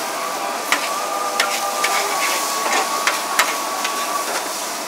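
Kuey teow noodles and bean sprouts sizzling in a large hot wok, a steady hiss, with several sharp metal clinks of a spatula against the wok.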